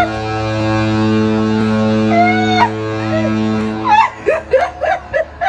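A cruise ship's horn sounding one long, steady low blast as the ship leaves, with voices calling over it; the horn stops about four seconds in, followed by a run of excited shouting voices.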